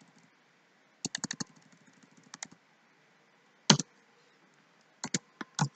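Computer keyboard keys being pressed: a quick run of taps about a second in, then a few single taps, one louder than the rest a little past the middle.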